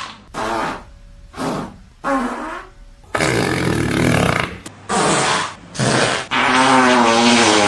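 A series of fart sounds: three short ones, then a longer, noisier one, two more short ones, and a long one with a wavering pitch near the end.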